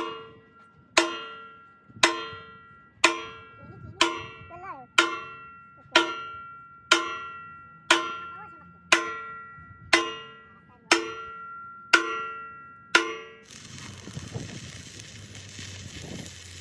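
Steel struck with a hammer about once a second, fourteen evenly spaced blows, each ringing out with a clear metallic tone. Near the end the blows stop and a steady hiss takes over.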